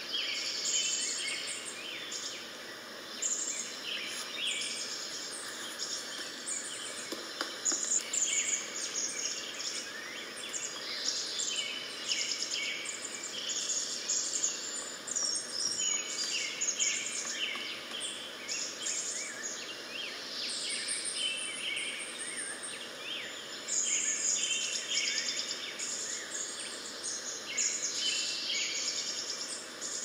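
Small songbirds chirping and singing in a busy chorus, with many short high calls and trills overlapping throughout.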